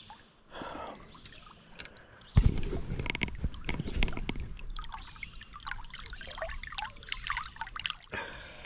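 Creek water splashing and swirling close to the microphone as a hand lowers a rock bass into the water and lets it go, starting suddenly about two and a half seconds in.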